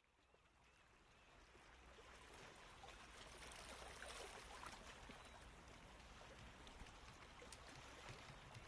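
Faint running water, fading in from silence and growing steadily louder, with a few faint ticks.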